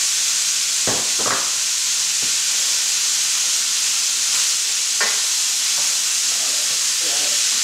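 Chicken thighs, bacon and diced onion sizzling steadily in a stainless steel sauté pan while a wooden spoon stirs them, with a couple of short knocks about a second in and again near five seconds.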